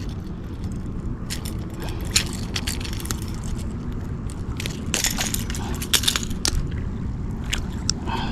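Irregular clicks and scrapes from hands working fishing tackle on a just-landed small striped bass. They come in two busy clusters, about two seconds in and again around five to six seconds. Wind rumbles on the microphone underneath.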